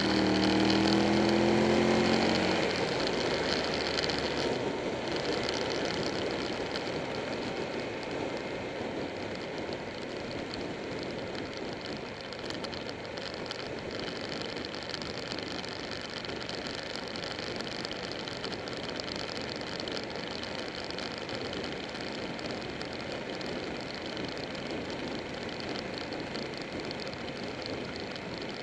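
Buell 1125R's 1125 cc V-twin engine pulling hard, its pitch rising for the first couple of seconds, then settling into steady wind and road noise while cruising.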